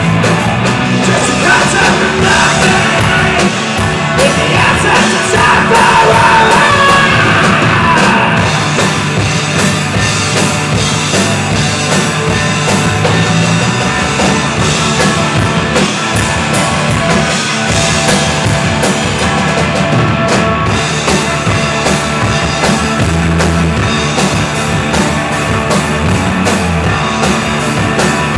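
A rock band playing live: electric guitars and a drum kit with cymbals, loud and continuous without a break.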